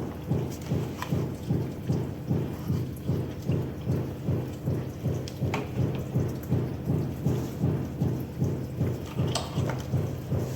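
Top-load washing machine agitating a tub of water, a rhythmic churning and sloshing of about three strokes a second with a few light clicks.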